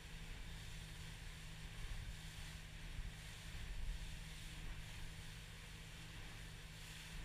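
Motorboat running at speed on open water: a steady low engine drone under wind buffeting the microphone and the rush of water along the hull.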